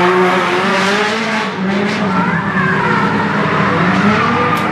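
Drift cars' engines revving on the track, rising and falling in pitch, with tyres squealing.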